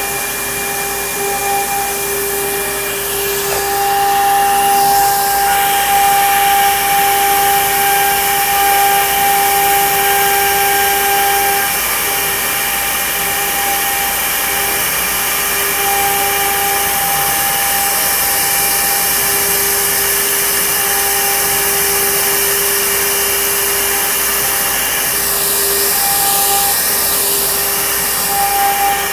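CNC router cutting a thin sheet. The spindle runs with a steady whine over the rushing hiss of the dust-extraction hose at the cutting head.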